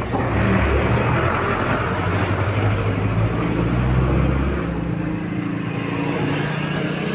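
A motor vehicle's engine running close by on the street, a steady low hum that is loudest for the first four seconds or so and then eases a little.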